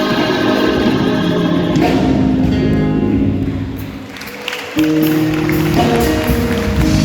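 Gospel choir singing with band accompaniment in a live worship performance. The music thins out and drops in level a few seconds in, then held chords come back in sharply just before five seconds.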